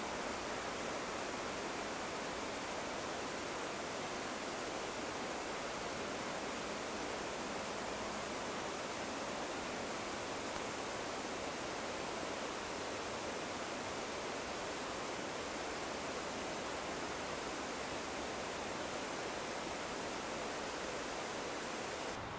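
Steady, unbroken rush of a mountain river flowing through a gorge.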